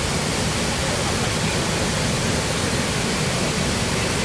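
Athirappilly Falls in monsoon flood: a wide torrent of muddy water plunging over the cliff, making a loud, steady rushing noise with no let-up.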